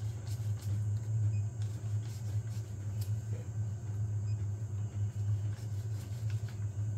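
Steady low hum of an Elegoo Neptune 4 Pro 3D printer's fans running while it sits idle during manual bed levelling, with a few faint light clicks from hands handling the paper and the touchscreen.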